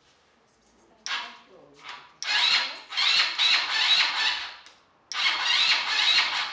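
Small ATV's electric starter cranking the engine in three tries: a short one, a long one, then a third, without the engine catching.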